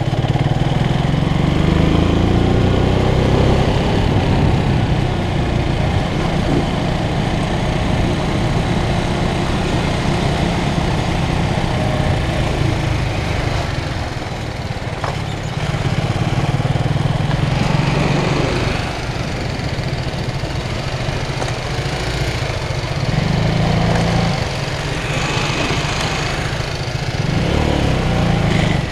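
Motorcycle engines running while riding on a paver-stone road. The engine rises in pitch as it accelerates at the start and pulls up again a few times, over steady wind and tyre noise.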